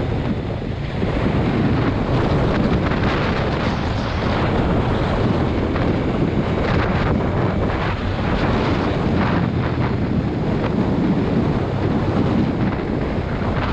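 Wind noise buffeting the microphone of a moving motorcycle, with the engine running steadily underneath.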